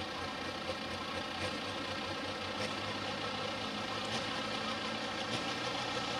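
An 11,000 lb Pro Farm pulling tractor's diesel engine running hard and steadily during a pull, with a dense, unbroken drone.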